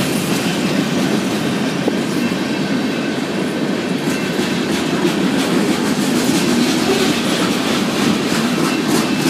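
Freight cars (covered hoppers, then boxcars) rolling steadily past: a continuous rumble of steel wheels on rail with light clicking as they cross rail joints.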